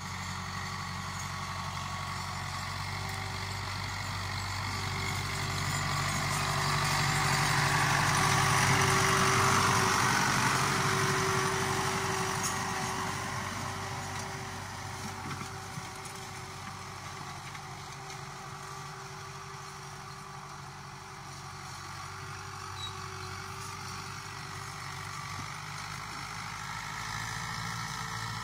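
Fiat/New Holland 640 tractor's diesel engine running steadily under load while pulling a disc harrow through the soil. It grows louder, is loudest about a third of the way in, then fades as the tractor moves away.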